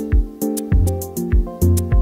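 Music with a steady beat: a deep drum about every 0.6 seconds, sharp high percussion ticks and held chords.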